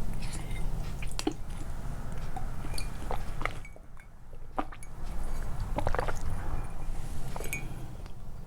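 Close-miked eating sounds: wet chewing and mouth clicks, scattered irregularly, with a brief quieter pause about four seconds in.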